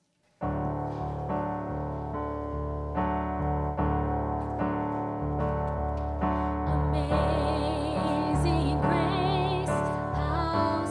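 Electric keyboard starting a hymn, playing sustained chords that change about once a second, beginning about half a second in. From about seven seconds in a wavering melody line joins above the chords.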